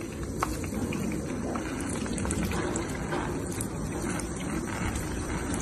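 Water running and splashing steadily, a continuous watery hiss with a few small ticks.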